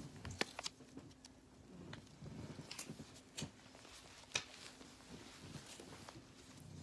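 Faint handling noise: a few sharp scattered clicks and soft rustling as a small plush toy is turned over in the hands, over a low steady hum.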